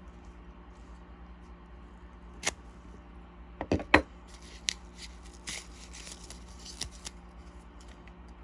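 Small sharp clicks and taps of lock pins being handled and set down one by one into a plastic pin tray while a pin-tumbler lock is taken apart. There are about eight clicks, the loudest cluster just before four seconds in.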